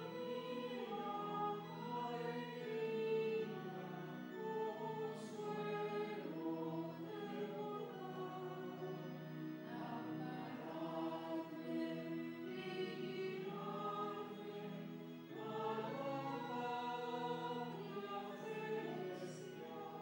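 Choral music: a choir singing slow, sustained phrases.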